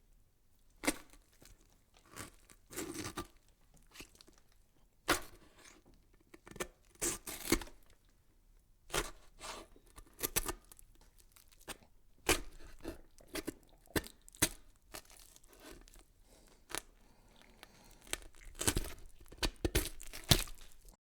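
Irregular crackling and rustling: sharp clicks and short scratchy bursts at uneven intervals, with faint hiss between them.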